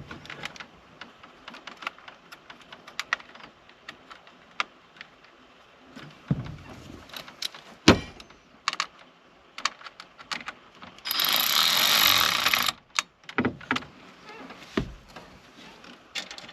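Scattered clicks, taps and knocks of hand work with tools and parts, with one sharp knock about eight seconds in. A hissing burst of noise lasts nearly two seconds, starting about eleven seconds in.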